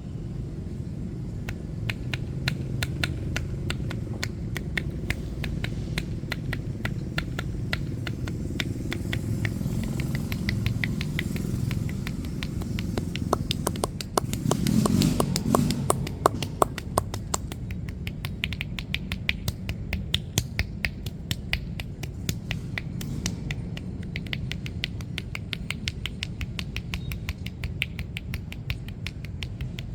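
Hands working on bare skin during a massage: a long run of small slaps and clicks, several a second, over a steady low rumble. A louder low rushing swell comes about halfway through.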